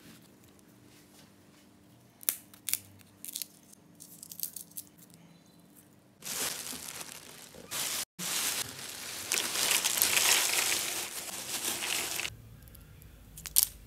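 Peanut shells cracked open by hand, a few sharp cracks, then a thin plastic bag rustling and crinkling loudly for several seconds as the dry peanut shells are handled and tipped out.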